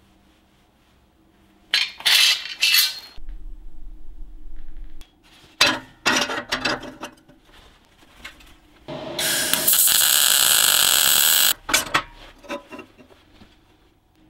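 Steel square tubing and screw clamps clanking, rattling and scraping against a steel welding table as the frame is set up and clamped, with groups of knocks about two and six seconds in and a steady rasping scrape of about two and a half seconds near the middle.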